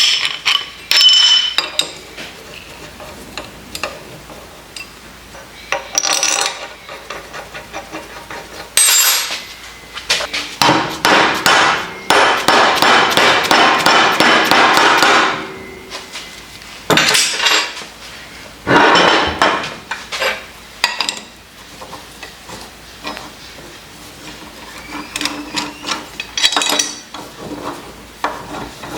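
Metal knocks and clanks of tools on the steel parts of a Kurt milling machine vise, with long runs of rapid tapping in the middle and scattered single knocks.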